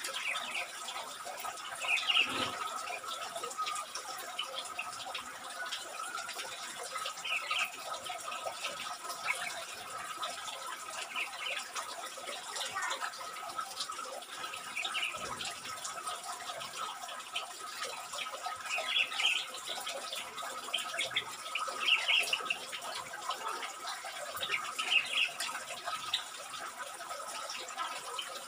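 Bulbuls chirping in short bursts every few seconds over a steady hiss and a faint steady high tone.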